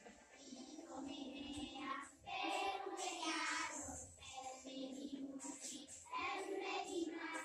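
A group of young children singing together in chorus, in short phrases with brief breaks between them.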